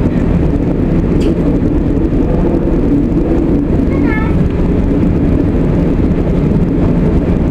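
VT98 Uerdingen railbus running steadily under way, heard on board: a continuous diesel drone and the rumble of the wheels on the track. A brief voice-like sound comes about four seconds in.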